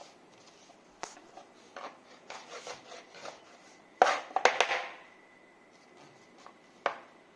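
Kitchen knife cutting bottle gourd peel into small pieces on a wooden chopping board: scattered light taps and rubs, then a quick run of loud knife strikes on the board about four seconds in, and one more sharp knock near the end.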